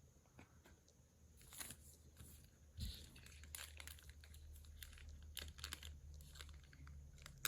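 Faint crinkling and tearing of a cellophane trading-card pack wrapper being handled, with scattered light clicks, over a low steady hum.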